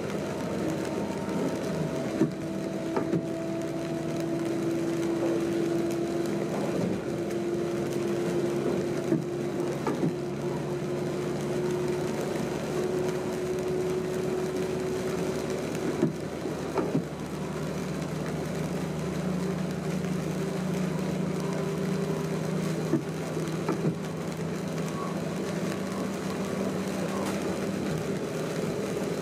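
A train running, heard from inside the driver's cab: a steady drive hum with a tone that slowly climbs in pitch, and scattered sharp clicks.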